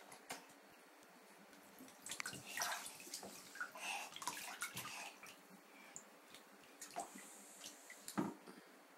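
Faint splashing and sloshing of shallow bathwater as a baby plays in the tub, in irregular bursts, with a couple of sharper knocks near the end.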